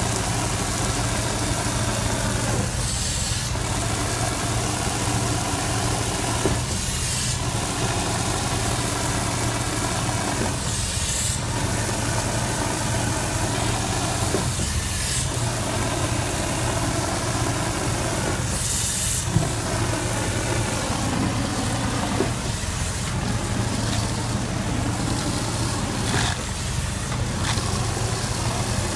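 Shotcrete rig's engine-driven concrete pump running steadily. Its sound dips in a regular cycle about every four seconds, with a short hiss at several of the dips.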